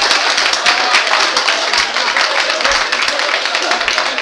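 Live audience applauding, a dense, steady clapping.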